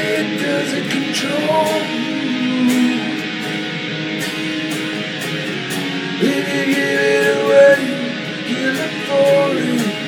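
Guitar instrumental music: strummed chords under a lead line of held notes that slide up and down, ending on a downward slide near the end.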